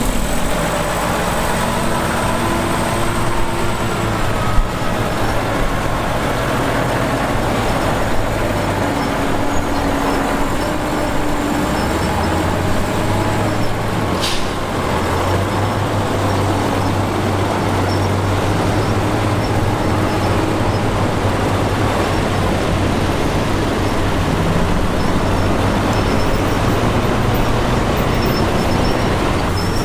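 Heavy diesel construction machinery running steadily under work: a low engine drone with shifting higher tones over it in the first half, and one short sharp click about halfway through.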